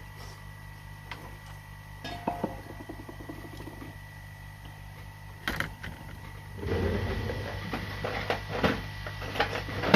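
Workbench sounds during a solder job on a laptop motherboard: a steady low hum and faint high tone from bench equipment, with a few sharp taps and clicks of tools on the board. About two-thirds of the way through, a louder rushing noise sets in, dotted with small clicks and rattles of handling.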